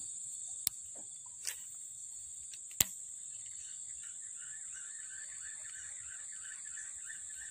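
Steady high-pitched chorus of insects such as crickets, with three sharp clicks in the first three seconds and a lower, fluttering chirring joining from about halfway.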